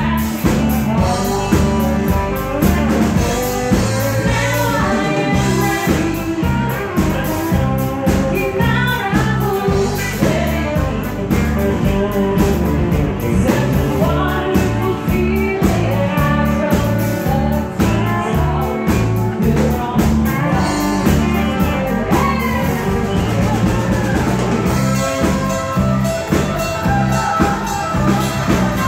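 Country song: singing over a band with a steady beat.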